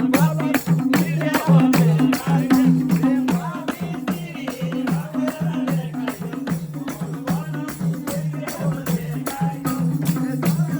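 Nepali dohori folk music playing without singing: a quick, steady beat of rattling percussion over a repeating low melodic line.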